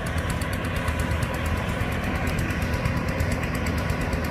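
Tracked rice combine harvester driving along a road, its diesel engine running steadily with a fast, even clatter.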